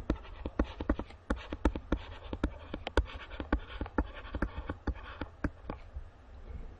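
Stylus tapping and scratching on a tablet screen as words are handwritten: an irregular run of sharp clicks, about four or five a second, over a faint scratching, stopping about a second before the end.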